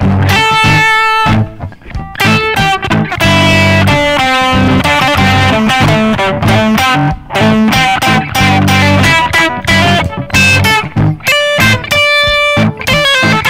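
Les Paul-style electric guitar playing single-note lead phrases through an effects processor with light distortion, over a looped guitar part that keeps repeating underneath.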